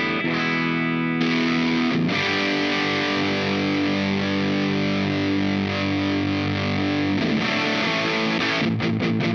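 Electric guitar, a Fender Elemental Jazzmaster, played through the Dazatronyx RAD distortion pedal (a RAT-style circuit). Distorted chords ring out and change about a second in, again at two seconds and again near seven seconds, with a few quick picked notes near the end.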